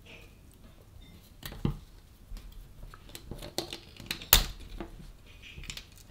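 Scattered small clicks and taps of metal tweezers and fingers on a multimeter's plastic case and circuit board as the board is worked loose, with one sharper click about four seconds in.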